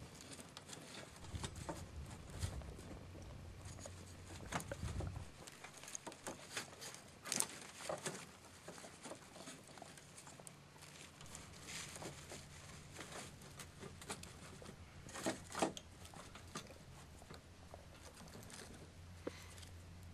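Small wood fire crackling faintly in a folding steel camp stove, mixed with the clatter of dry sticks being handled and pushed into its side feed opening. Irregular clicks and snaps, with a few sharper ones about a third of the way in and again about three quarters of the way in.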